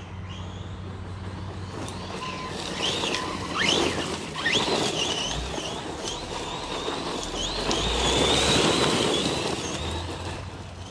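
Losi Lasernut RC truck's brushless electric motor whining, rising sharply in pitch with several quick bursts of throttle, then holding a steady high whine at speed, loudest a few seconds before the end, over a rushing noise from the tyres on dirt.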